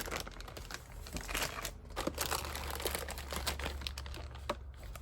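Plastic bags of model-kit parts being handled, crinkling and rustling, with scattered light clicks.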